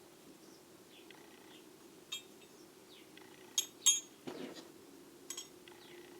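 Steel wrenches clinking against one another as they are handled in a toolbox drawer: a handful of sharp, ringing metal clinks, the loudest two close together near the middle.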